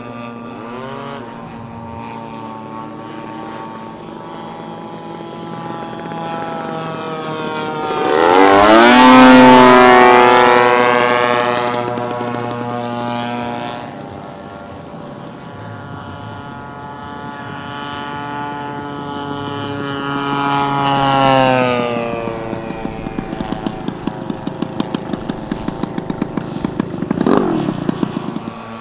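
Engine of a large-scale RC warbird making low passes: a loud fly-by about eight to twelve seconds in with its pitch falling as it goes past, a second pass building to a peak about twenty-one seconds in and fading, then the engine throttled back to a rapid, regular popping as a scale SNJ Texan model lands and rolls along the runway.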